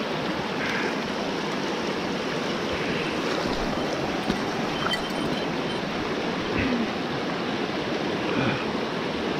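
Shallow rocky mountain stream running steadily over stones.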